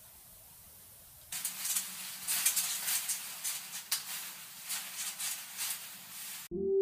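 Paper towel crinkling and tearing as a cockatoo pulls at it and shreds it: a busy crackle of paper that starts suddenly about a second in. Electronic music begins near the end.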